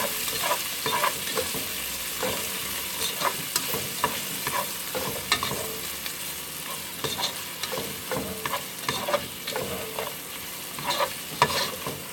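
Chopped onions, garlic and shallots sizzling as they fry in oil in a pot, stirred, with short scrapes and clicks of the utensil against the pot scattered through.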